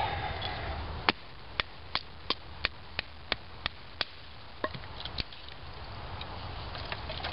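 Wooden baton striking the spine of a knife to split a thin stick of cedar: a run of about nine sharp knocks, roughly three a second, starting about a second in, then two or three more before it stops.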